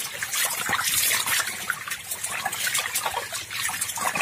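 Water splashing and churning as a dense crowd of climbing perch thrash at the surface of a crowded tank, with many small irregular splashes.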